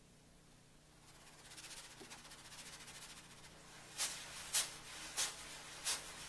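Rattling, hissing percussion in the dance's score. A faint, fast, dry rattle builds up, then four sharp hissing shakes come about half a second apart near the end.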